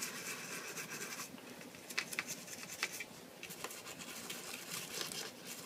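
Toothbrush scrubbing a small plastic action-figure part on a washcloth to strip its paint: faint scratchy brushing with a few light clicks.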